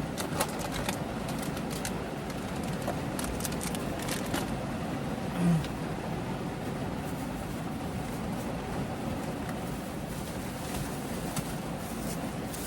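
Steady rain, an even hiss with scattered sharp drips or taps, and one short low sound about five and a half seconds in.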